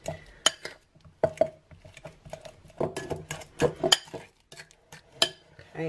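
Metal fork mashing ripe banana in a glass bowl: irregular clinks and taps of the fork against the glass as the banana is pressed smooth.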